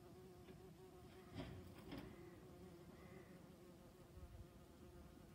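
Faint, steady buzzing of a honey bee's wings as it flies among the flowers, with a couple of small clicks about one and a half and two seconds in.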